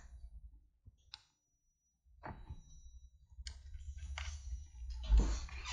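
Handling noise from a DSLR camera with a foam-covered external microphone mounted on it as hands grip and lift it: a single click about a second in, then scattered clicks and rustles, with low bumps near the end.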